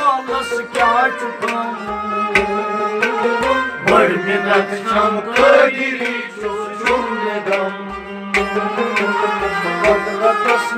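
Kashmiri Sufi ensemble playing an instrumental passage: harmonium and bowed sarangi with a plucked rabab over a steady beat struck on a clay pot drum.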